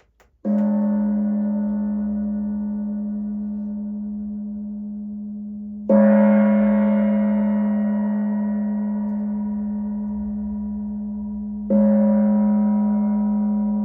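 A meditation singing bowl struck three times, about six seconds apart, each strike ringing on as a deep, steady, slowly fading tone with higher overtones, sounded to open a time of prayer and meditation.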